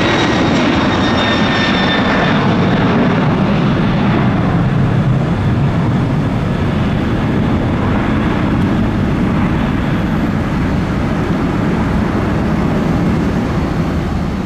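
Boeing 767-300ER twin jet engines at takeoff thrust during the climb-out just after liftoff: a loud, steady, deep jet rumble. A thin high engine whine fades out in the first couple of seconds.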